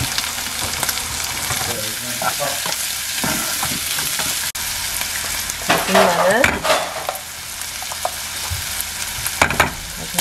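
Chopped onion, green onion and meat sizzling as they stir-fry in a nonstick pan. A wooden spatula scrapes and knocks against the pan, loudest about six seconds in.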